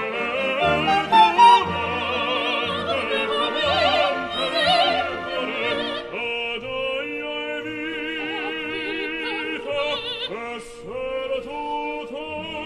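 Background classical music: an operatic voice singing with wide vibrato over orchestral accompaniment.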